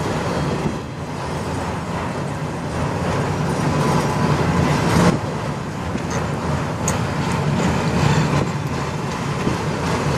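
Intermodal freight train cars rolling past, a steady rumble of wheels on rail, heard from inside a van with strong wind gusting around it.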